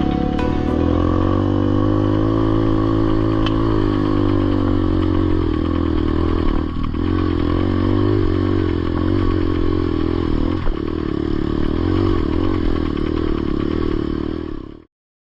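Dirt bike engine running at a fairly steady pace, its pitch rising and falling only slightly, then cutting off abruptly near the end.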